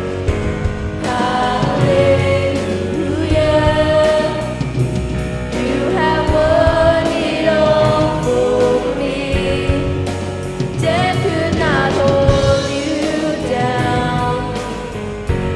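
Live contemporary worship music: voices singing long held lines over a band with a steady drum beat.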